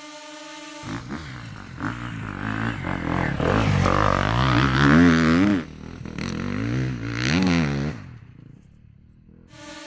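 Four-stroke enduro motorcycle engine revving hard in rising and falling bursts, loudest about five seconds in, dropping off sharply just after, then one more rev before it fades away. A steady droning tone is heard before the engine comes in and again at the very end.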